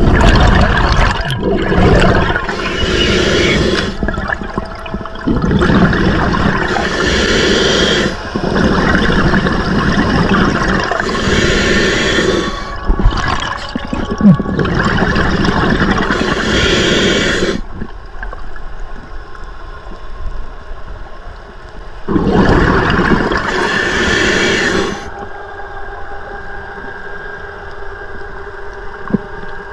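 Scuba diver breathing on a regulator underwater, with five bursts of exhaled bubbles of two to three seconds each, about every four to five seconds. There are quieter stretches between the bursts and a longer pause in the middle.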